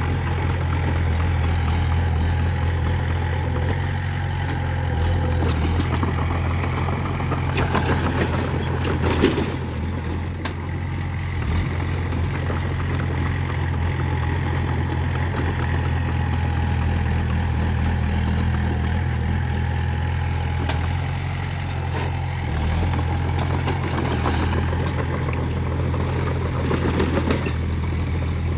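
Diesel engine of heavy earthmoving equipment running steadily, with a few metallic clanks, the loudest about nine seconds in.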